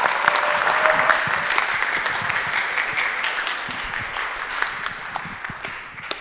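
Audience applauding: many hands clapping, strongest at the start and slowly dying away near the end.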